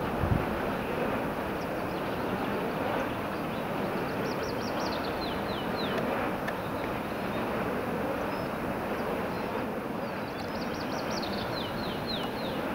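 Steady rushing outdoor background noise. A songbird sings a short phrase of quick high notes ending in falling slurs, about four seconds in and again near the end. A brief thump comes just at the start.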